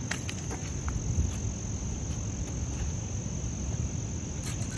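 Insects trilling steadily and high over a low rumble of wind or water noise. A few faint clicks are scattered through it, with a denser cluster of clicks near the end.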